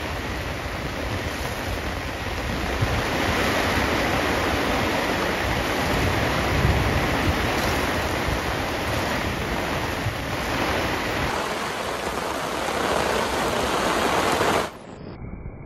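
Heavy rain falling steadily on a grassy meadow, a dense even hiss with an uneven low rumble beneath it. It cuts off suddenly near the end, leaving a much quieter sound.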